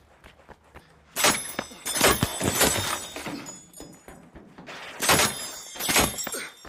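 Shuriken throwing-star sound effect: two pairs of sharp metallic strikes, each followed by a high ringing that dies away, the first pair about a second in and the second about five seconds in.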